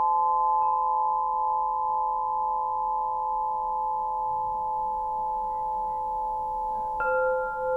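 Quartzophone crystal harp: clear quartz tubes struck with a mallet, several notes ringing together in a long, steady sustain with a slow wavering beat. A new note is struck just under a second in and another near the end.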